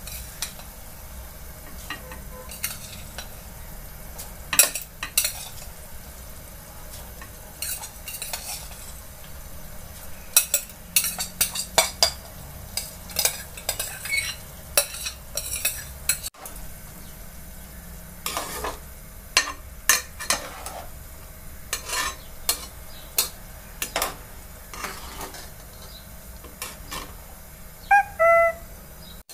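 Soaked rice being poured from a glass bowl into a metal pot of boiling water and stirred with a metal slotted spoon: many short clinks and scrapes against the pot over a steady bubbling of the boil. Near the end there is a short ringing clang, metal striking the pot.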